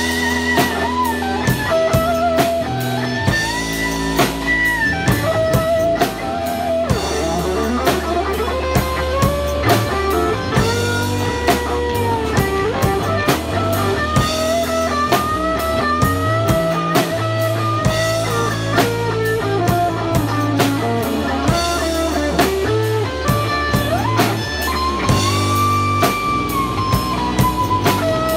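Live instrumental rock band: a lead guitar melody with slides between notes over bass and a clear acrylic drum kit keeping a steady beat.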